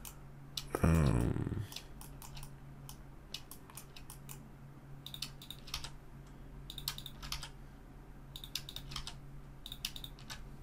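Computer keyboard and mouse clicking: scattered single key presses and button clicks at an uneven pace. About a second in there is a brief murmur from a voice, falling in pitch.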